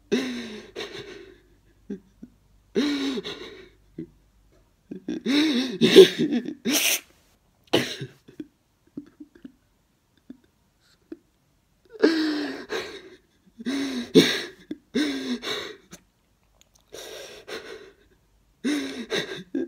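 A man sobbing: short bursts of crying wails that fall in pitch, broken by sharp gasping breaths, with a pause of a few seconds midway.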